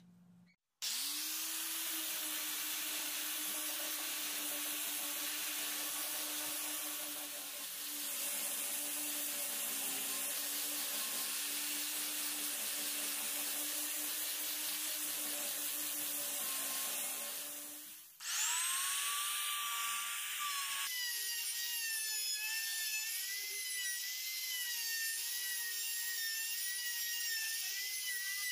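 A sanding disc on an angle grinder spins up and runs steadily against a wooden disc. It stops about 18 seconds in. A Makita trim router then starts with a rising whine and runs cutting wood, its pitch wavering under load.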